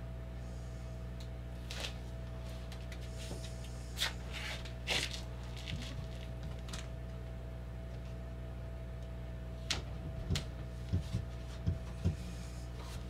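Hands putting a sticker onto a wooden wall panel: scattered short rustles and light taps, then several soft thumps near the end as a palm presses it flat against the wood. A steady low electrical hum runs underneath.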